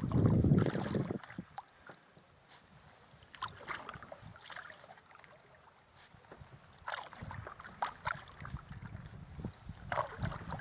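Canoe paddle strokes dipping and splashing in river water, a short burst every few seconds. A loud low rumble fills the first second.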